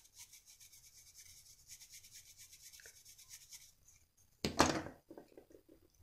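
Fast, even scrubbing strokes against a small IR receiver circuit board wet with CTC solvent, as the board is cleaned. The strokes stop a little before four seconds in, and a short, louder knock follows about half a second later.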